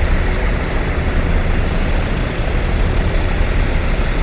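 Bus engine idling: a steady, even low rumble with no horn sounding.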